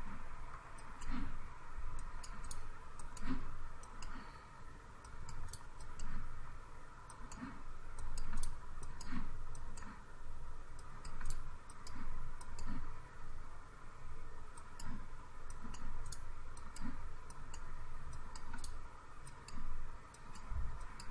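Computer mouse clicking at irregular intervals as cut points are placed one by one, over a steady background hum.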